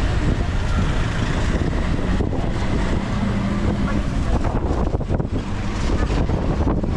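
Wind buffeting the microphone over a steady low engine rumble.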